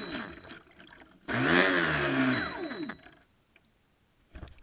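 Feilun FT011 R/C boat's brushless electric motor winding down off throttle, then given a short burst of throttle a little over a second in: the whine rises in pitch, holds for about a second and dies away. A small knock near the end.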